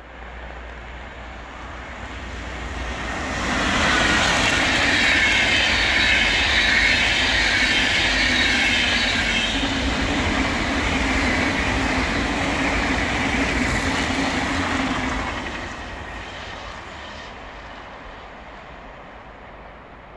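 A VR double-deck InterCity electric train passing at speed. The hiss and rumble of its wheels on the rails build over about two seconds, hold loud for roughly twelve seconds, then die away.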